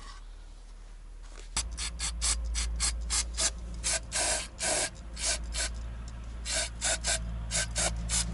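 A can of brake cleaner being handled in quick short strokes: a rapid, irregular series of brief scratchy sounds, about three or four a second. They start about one and a half seconds in, over a steady low hum.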